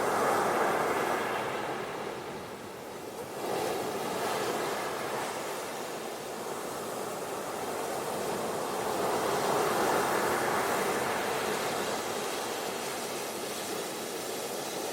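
Ocean surf washing on a beach: a wave swells at the start and eases, a new surge comes in suddenly about three and a half seconds in, and another wave swells near ten seconds in.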